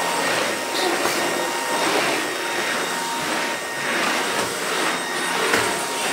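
Cordless stick vacuum cleaner running steadily with a high motor whine as its floor head is pushed back and forth over a wooden floor. The sound swells and dips about once a second with the strokes.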